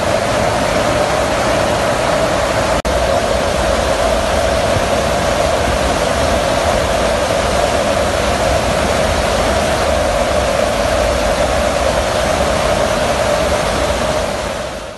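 Loud, steady rush of wind and engine noise inside a transport aircraft's cargo hold with the rear ramp open in flight, with a steady drone running through it. It breaks off for an instant about three seconds in and fades out near the end.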